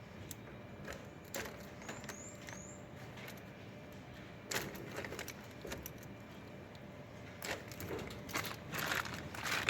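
Scattered small clicks, taps and rustling of hands and a screwdriver working on the washer's plastic parts and wire connectors, with a few faint squeaks about two seconds in and busier handling near the end.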